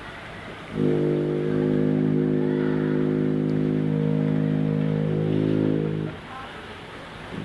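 One of the unexplained 'strange sounds' of 2012: a low, steady, horn-like drone with many overtones. It starts about a second in, holds for about five seconds and stops suddenly. The next drone begins at the very end.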